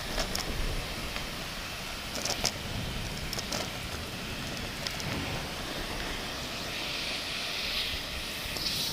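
Heavy rain falling steadily, with a low rumble underneath and a few sharp crackles.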